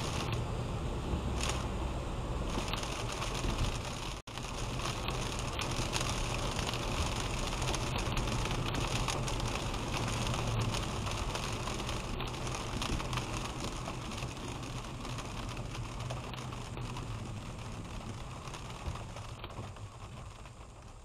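Steady road noise inside a car driving on a wet road in the rain: tyres hissing on the wet surface under a low hum, with a dense crackle of raindrops hitting the windshield. The noise dips out for an instant about four seconds in and fades over the last few seconds as the car slows to a stop.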